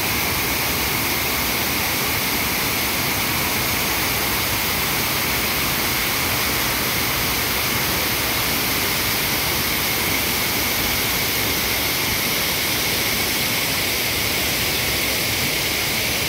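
Steady, unbroken rush of the Radovna river's water pouring over a concrete weir in a full-width cascade.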